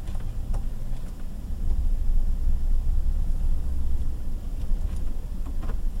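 A vehicle's engine and transmission in reverse, heard from inside the cab while creeping backwards under trailer load. A steady low rumble with a few sharp clicks, about half a second in and again near the end. This is the sound of a blown reverse gear.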